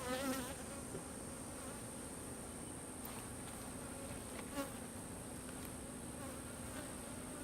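Honeybees buzzing in a steady hum, with single bees flying close by in brief wavering buzzes about a third of a second in and again about four and a half seconds in.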